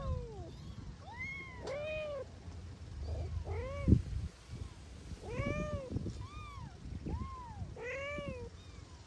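Kittens meowing over and over: about a dozen short, high-pitched meows that rise and fall in pitch, coming in clusters and sometimes overlapping. A sudden low thump sounds about four seconds in.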